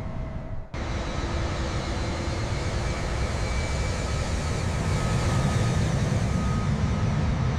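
Jet airliner engines at takeoff power: a steady, low, noisy rumble that breaks off briefly under a second in and then grows slightly louder.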